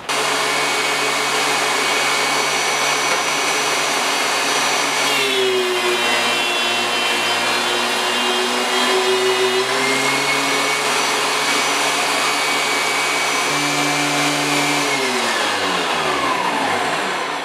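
DeWalt DW735 thickness planer with a spiral cutterhead switching on abruptly and running at full speed. About five seconds in its pitch drops and stays lower for about five seconds while a board feeds through and is cut, then rises again as the board clears. Near the end it is switched off and winds down, pitch falling.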